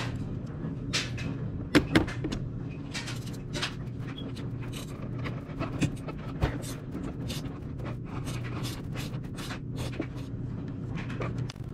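Small clicks and scrapes of a hex driver and fingers on the metal shock tower and shock mounts of an RC nitro buggy as its shock screws are worked loose, with a pair of sharper clicks about two seconds in. A steady low hum runs underneath.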